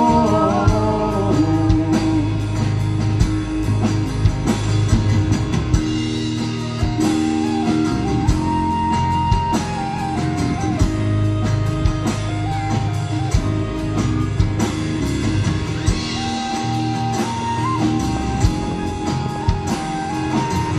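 Live folk-rock band playing an instrumental break without vocals: acoustic guitar, electric bass and drum kit keeping a steady beat under a stepping lead melody line.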